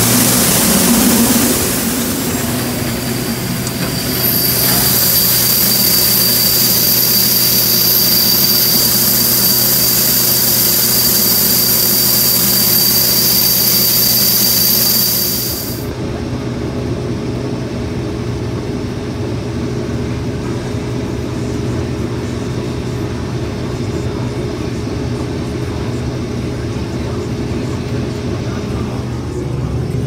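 Case IH 2366 combine harvester running steadily at work, a constant engine drone under a loud high hiss and thin whine. The hiss and whine cut off suddenly about halfway through, leaving the engine drone.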